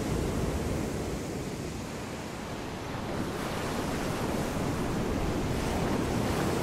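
Heavy storm surf: large waves breaking and crashing in a continuous loud rush, easing a little about two seconds in and then building again.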